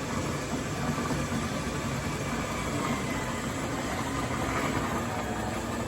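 A motor running with a steady, even hum.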